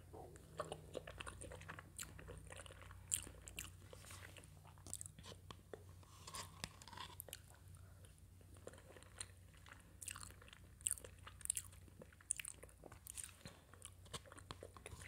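Close-miked eating of gelatin dessert: soft chewing and irregular wet mouth clicks as spoonfuls are taken from a plastic spoon.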